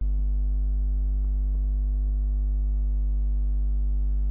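Steady low electrical hum with a few overtones, coming in suddenly and holding at an even level.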